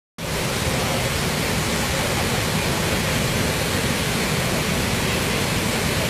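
Large waterfall in flood, a heavy volume of muddy water pouring over the falls: a steady, dense rushing noise, strongest in the low end.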